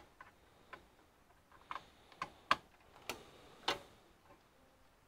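A few sharp plastic clicks and light knocks from cable connectors and drive cables being handled and plugged in inside an open desktop PC case. The clicks come about one every half second in the middle of the stretch, the loudest about two and a half seconds in.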